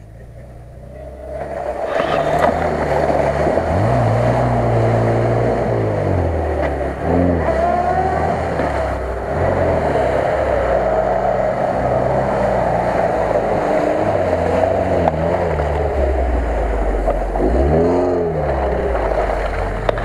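Lada Niva 4x4 engine revving hard as it churns through deep mud and water, its pitch climbing and dropping again and again as the driver works the throttle, over a steady rush of mud and water spraying from the spinning tyres.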